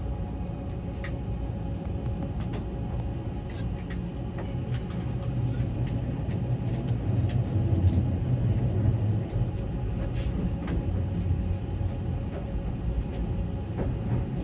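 Odakyu Romance Car limited express running, heard inside the front observation car as it pulls out of a station: a low rumble that grows louder over the first half, under a steady hum, with scattered clicks of wheels over rail joints and points.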